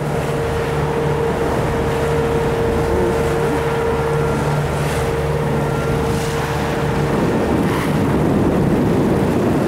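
Sailing yacht's inboard diesel engine running steadily under way, with wind on the microphone and water rushing past the hull. About seven seconds in, the steady engine hum gives way to a louder rush of wind and water.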